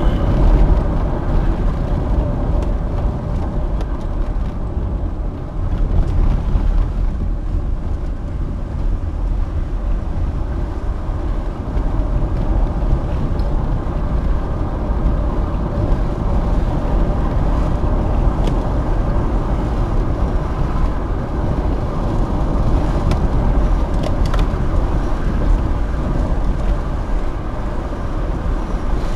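Car driving at road speed, heard from inside the cabin: a steady rumble of engine and tyres on the road.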